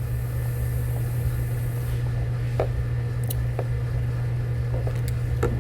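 Steady low machine hum, with a few light sharp clicks as a plastic tap splice connector is squeezed shut onto two wires.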